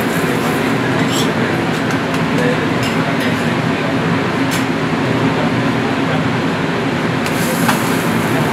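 A stuffed paratha frying on a flat iron griddle: a steady sizzle over a low hum, with a few sharp clicks of a metal spatula against the griddle.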